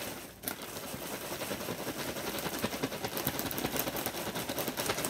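Plastic zip-top bag crinkling and rustling while crushed Oreo cookie crumbs are shaken out of it, a dense run of small crackles.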